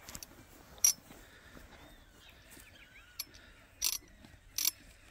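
A few sharp clicks, the loudest about a second in and three more in the second half, over faint bird chirps in the background.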